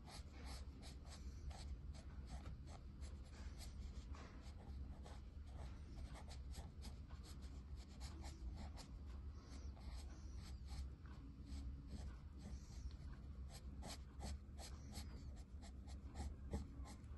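Pencil sketching hair on paper: faint, quick scratchy strokes in rapid succession over a low steady hum.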